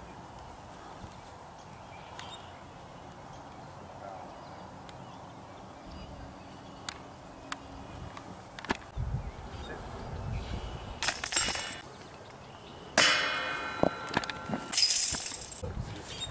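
Disc golf discs striking a metal chain basket: chains jingling twice and a sharp metal clang that rings on, all in the last few seconds.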